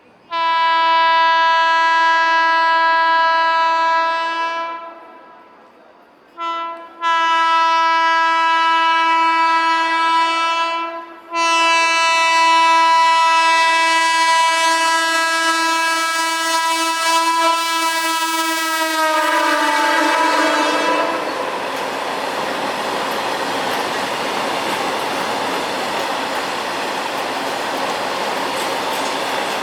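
WAG-12 electric freight locomotive sounding its air horn in three long blasts, with a short toot before the second. The last blast drops in pitch as the locomotive passes, giving way to the loud rush and clickety-clack of the train running by at speed.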